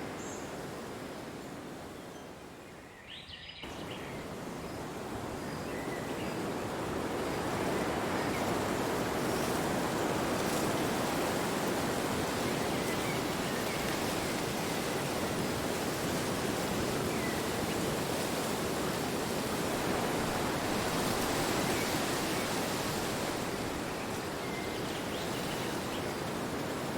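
Wind blowing steadily, an even rushing noise that dips and breaks off abruptly about three seconds in, then swells up again and holds.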